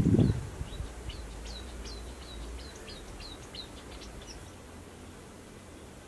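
A small songbird singing a quick run of short, high, falling notes for about four seconds, then stopping. A low rumbling thump sits in the first half-second.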